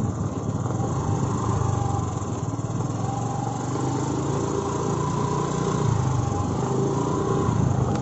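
Motorcycle engine running steadily on the move, a continuous drone whose pitch shifts a little.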